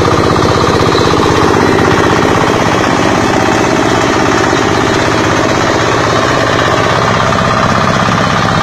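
Multipurpose grass chopper and compost grinder machine running steadily and loudly, its motor giving a fast, even rattling beat.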